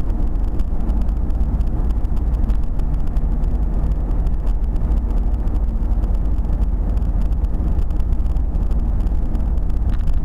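Steady low rumble of road and engine noise heard from inside a car's cabin while cruising at motorway speed.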